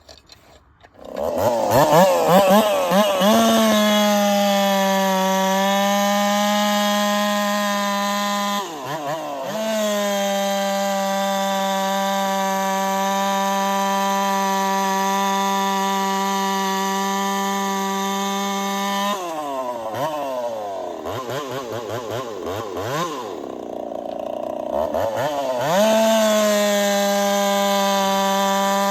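Two-stroke chainsaw opened up to full throttle about a second in and held at a steady high pitch while cutting wood. Its revs dip briefly about a third of the way through, then sag and waver for several seconds in the second half before climbing back to full speed near the end.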